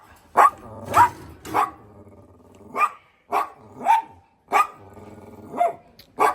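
A dog barking about ten times in short, sharp barks at uneven spacing, with a low growl between the barks.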